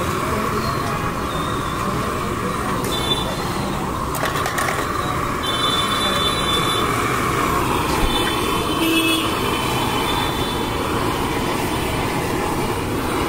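Steady roaring hiss of a gas burner under a steel frying pan with an egg omelette sizzling in it, with background chatter. A few short high tones sound around the middle.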